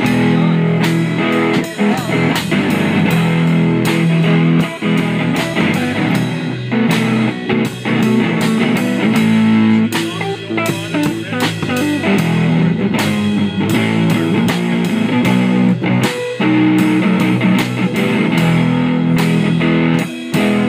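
Live band playing a blues-rock instrumental passage: guitar over a drum kit, with no singing.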